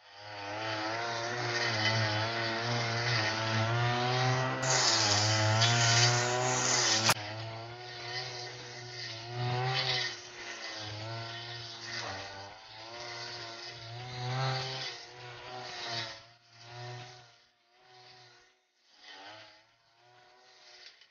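Backpack brush cutter's small petrol engine running at high revs, its pitch wavering as the cutting head works through dense weeds. Near the end the sound breaks up into short bursts with quiet gaps between them.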